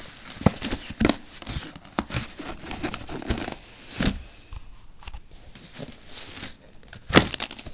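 Plastic shrink wrap and a cardboard electronics box being torn and handled: irregular crinkling and tearing, with a few sharp clicks and taps, the loudest near the end.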